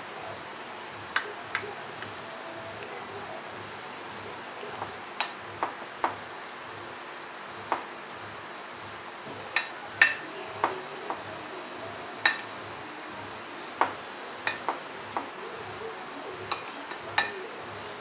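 A spoon tapping and scraping against white ceramic baking dishes while spreading saucy macaroni, giving irregular sharp clicks every second or so.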